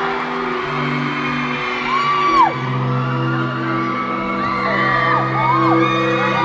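Held electronic chords of a song intro, changing every second or two, with fans' high-pitched screams rising and falling over them, once about two seconds in and several times near the end.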